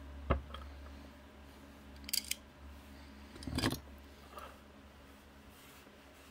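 Small objects being set down and handled on a wooden workbench: a soft knock near the start, two sharp clicks about two seconds in, and a short scraping rustle about three and a half seconds in, over a steady low hum.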